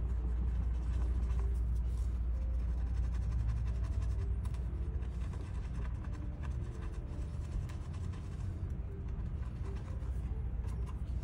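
A swab wet with isopropyl alcohol rubbing over a TV mainboard to scrub off flux residue: faint scratchy rubbing with small clicks, over a steady low hum.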